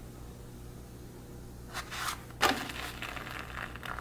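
A flour tortilla being flipped on a hot comal: a short scrape, then a sharp slap about halfway through as it lands, followed by light crackling as it cooks on the hot griddle.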